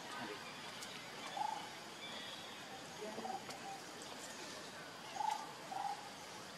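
Outdoor forest ambience with about four short, soft hooting calls from an animal, spaced a second or two apart, and a few faint clicks.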